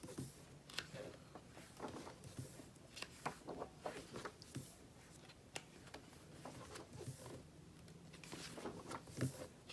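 Glossy pages of a thick photo magazine being turned by hand: a string of soft, irregular paper flicks and rustles.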